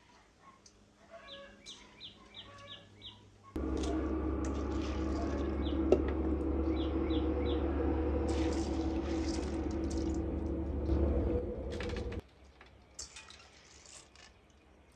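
A bird chirps a quick run of short high notes. Then, about three and a half seconds in, a loud steady noise with a low hum starts abruptly and runs until it cuts off sharply after about eight seconds. It is followed by faint scattered ticks.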